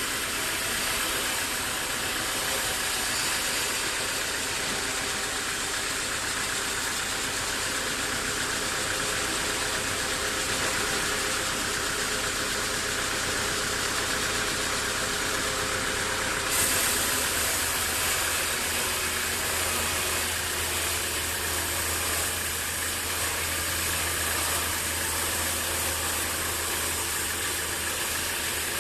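Sawmill machinery running steadily with a constant engine drone and hiss. About halfway through the sound changes suddenly, with a stronger high hiss and a deeper hum.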